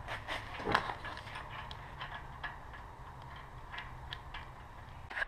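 Scattered light clicks and taps of bolts, parts and tools being handled while a motorcycle engine and swing arm are fitted into the frame, with one louder knock under a second in, over a steady low hum.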